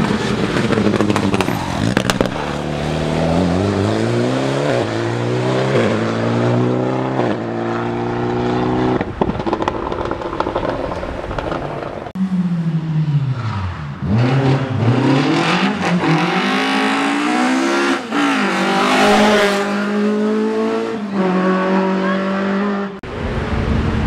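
Rally cars at full throttle on a tarmac stage. For the first several seconds an engine revs up in steps as it shifts through the gears. After a cut, a second pass has the engine pitch dropping sharply and then climbing again as the car goes past.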